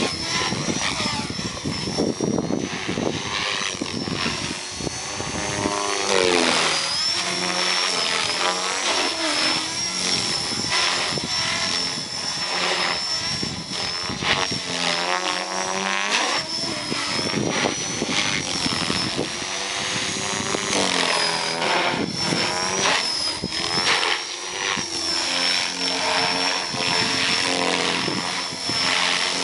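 Align 470LM electric RC helicopter flying 3D aerobatics: a steady high whine from the motor and drive that wobbles slightly in pitch, over rotor noise that swoops up and down in pitch several times as it manoeuvres.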